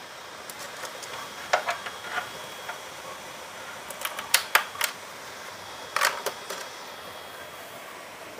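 Steady hiss of the Cooler Master Notepal L1 cooling pad's single 160 mm fan running, broken by several sharp plastic clicks and knocks as the pad and laptop are handled, the loudest about four and a half and six seconds in.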